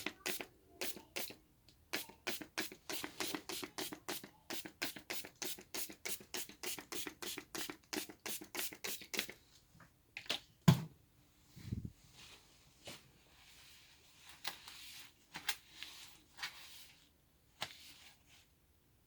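Quick repeated scratching strokes, about four a second, for several seconds, then one thump and a few scattered scrapes.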